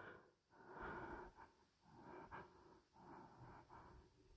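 Near silence: quiet room tone with a few faint, soft sounds.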